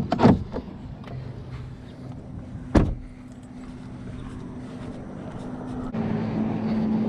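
Vehicle engine running with a steady low hum, broken by two sharp knocks; the hum grows louder about six seconds in.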